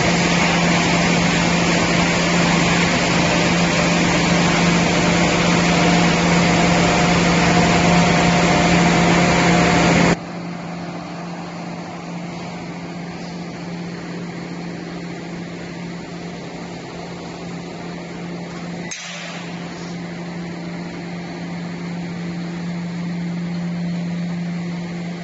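Wood pellet production line machinery running steadily: a loud, even machine noise over a constant low hum. About ten seconds in it cuts abruptly to a quieter run of similar machine noise with the same hum, with another brief break near nineteen seconds.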